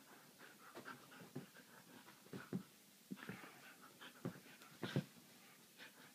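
Siberian husky play-fighting with a cat, making short, faint huffs and grumbles, a couple every second, the loudest about five seconds in.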